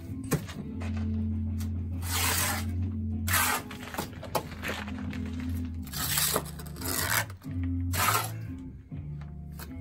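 Background music with a steady low bass line, over which a mason's steel trowel gives several separate short scraping rasps as it works mortar.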